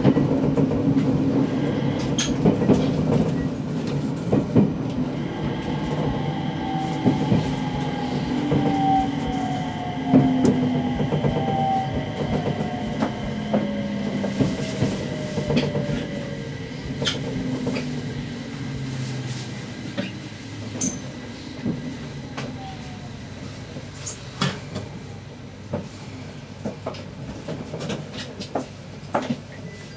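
Aoimori 701 series electric train slowing into a station: wheels clicking over rail joints and points, with a falling whine from the motors as it brakes. The running sound grows quieter and the clicks more spaced out as the train nears a stop.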